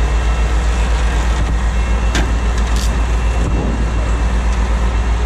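Heavy wrecker's diesel engine running steadily at raised revs to drive its hydraulic winches, a loud, deep drone with a fast, even pulse. A couple of short clicks come about two and three seconds in.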